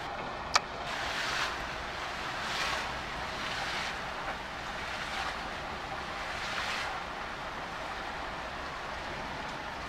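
Steady rain hiss with bare feet kicking and splashing through shallow running water in a flooded gutter, the splashes swelling a few times; a single sharp click just after the start.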